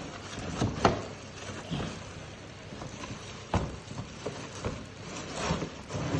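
Plastic vacuum cleaner parts and packaging being handled, with scattered knocks and clicks, the sharpest about a second in and a little past halfway.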